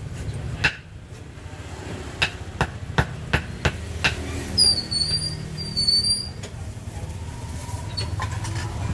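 Knife chopping cooked pork on a thick wooden chopping block: about seven sharp chops at uneven spacing over the first four seconds. Two short high-pitched squeaks follow a little past halfway, over a steady low hum.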